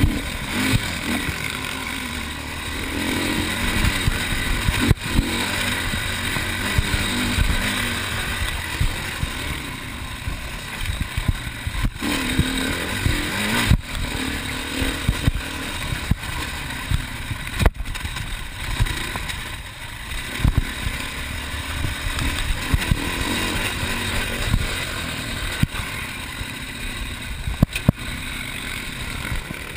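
Enduro dirt bike engine heard up close from the bike itself, revving up and down continuously as it is ridden over a rough forest trail, with occasional sharp knocks from the bumpy ground.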